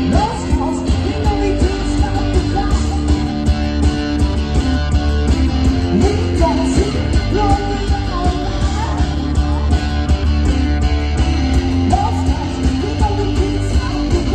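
Live rock music played loudly: an electric guitar riffing with bent, wavering notes over a steady drum beat.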